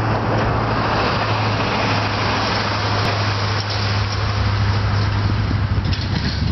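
Diesel-electric freight locomotives running under power: a steady low engine drone with a wide rushing noise over it.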